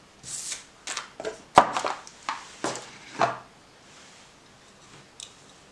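A small automatic knife being unwrapped and handled: bursts of rustling wrapping with several handling clicks and knocks, the sharpest about a second and a half in, then a quiet stretch.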